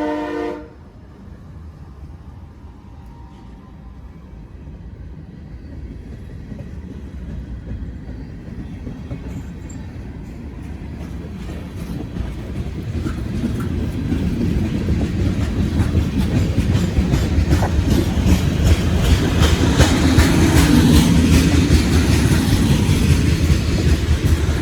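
CSX freight train at a crossing: the locomotive's horn chord cuts off about half a second in. The train's rumble and wheel clatter then grow steadily louder as it comes through, with rapid clickety-clack of the wheels over the rail joints in the second half.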